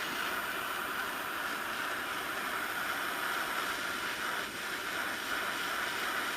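Gas torch flame hissing steadily while it heats an aluminum garbage disposal housing up to the temperature at which an Alumaloy brazing rod will melt onto it.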